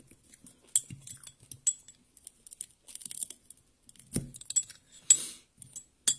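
Fingers breaking apart small sapsap fish and picking through rice in a ceramic bowl, giving scattered light clinks and taps against the bowl with short crackling rustles between them.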